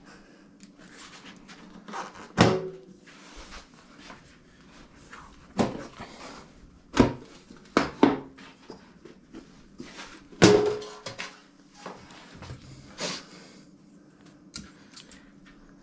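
Hand tools and parts of an opened electric water heater being handled and set down: scattered sharp knocks and clacks, about seven of them, a couple with a short ringing tail.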